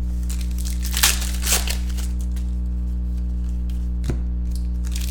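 Foil card-pack wrappers and trading cards crinkling and rustling as they are handled by hand, in a few short rustles about a second in, again just after, and about four seconds in. A steady low electrical hum runs underneath.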